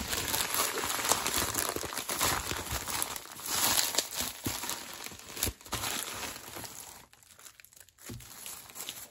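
Plastic packaging crinkling and rustling as a white plastic shipping bag is handled and a box wrapped in clear plastic is pulled out of it. The rustling dies down briefly about seven seconds in, then picks up faintly again.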